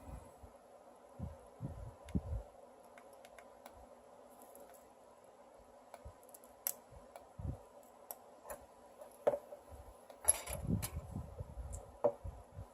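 Scattered light clicks and soft knocks of small metal parts and hand tools being handled during a rebuild of an RDA vape atomizer, over a faint steady hum. A brief scraping rustle comes about ten seconds in.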